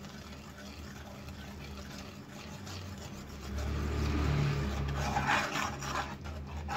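Steel spoon stirring and scraping thick masala gravy in a non-stick pan. The scraping is faint at first and grows louder and busier about halfway through.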